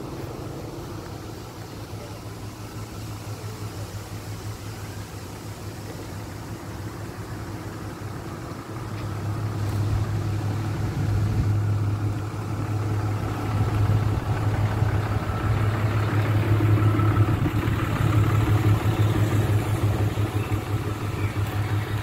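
Pickup truck's engine idling with a steady low hum, growing louder about nine seconds in.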